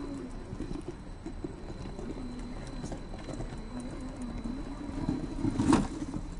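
Absima CR 3.4 Sherpa RC rock crawler's electric motor and gear drivetrain whining as it crawls over rock, the pitch wavering up and down with the throttle. A sharp knock near the end as the truck bumps on the rock.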